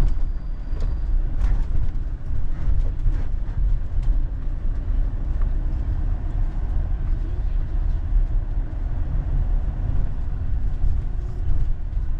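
Motorhome engine and road rumble heard from inside the cab as the van drives slowly onto a ferry's vehicle deck, with a few faint knocks in the first few seconds.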